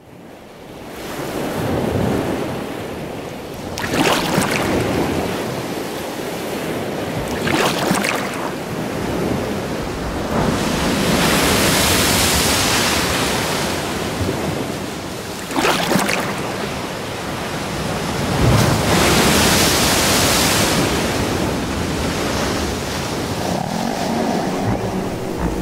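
Recorded ocean water washing in slow swells, with oars dipping and splashing in the water every few seconds. Near the end a low pitched sound begins to come in.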